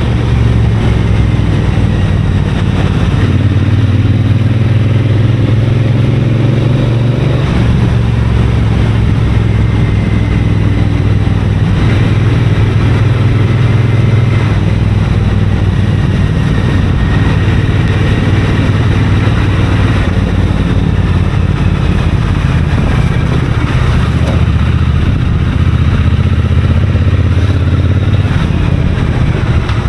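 Triumph Bonneville parallel-twin motorcycle engine running under way, its note dropping and climbing again several times as the throttle and gears change.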